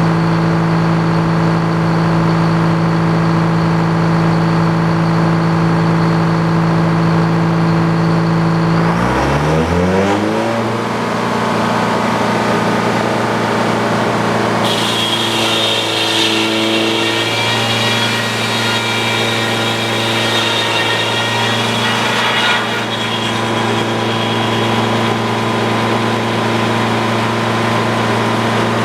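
Sawmill engine running steadily, changing speed about nine seconds in and settling at a new steady pitch. From about fifteen to twenty-two seconds a higher whine with a hiss joins it.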